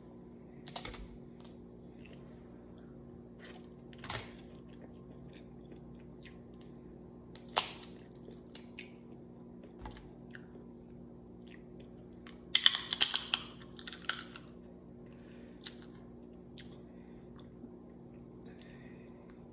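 Close-miked eating: crab-leg shells snapping as they are broken open by hand, with soft chewing between. A few single sharp cracks come first, then a dense burst of cracking about two-thirds of the way through.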